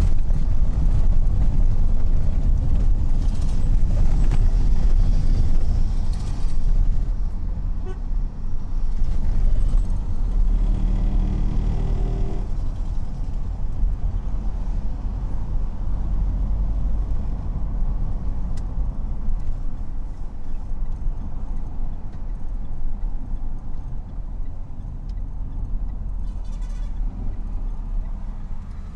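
Road traffic: a steady, loud low rumble of vehicles, with a vehicle horn sounding for about two seconds roughly eleven seconds in.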